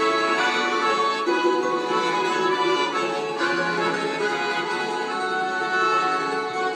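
Accordion playing an instrumental interlude between verses of a Russian folk-style song, a steady flowing melody with no singing.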